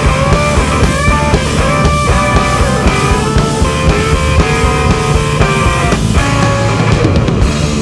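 Rock music with electric guitar and drums, an instrumental passage without singing.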